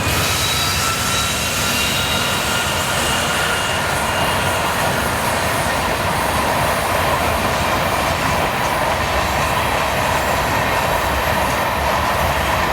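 A train rolling along the track: a steady rumble and rattle of wheels on rail, with faint high wheel squeals early on.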